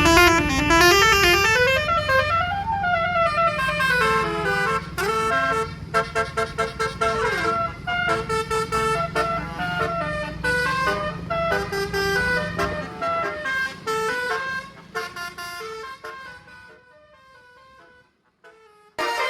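A bus's multi-tone 'telolet' melody horn playing a quick tune of stepping notes, first a run that climbs and falls, then many short notes, over the steady hum of the bus engine. The engine hum stops about two-thirds of the way in, and the horn notes fade out near the end.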